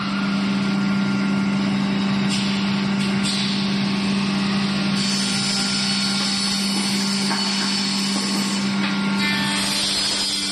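XY4016 finger-joint tenoning machine's electric motors running at a steady hum, just after spinning up. About five seconds in, a brighter, higher-pitched whir joins the hum.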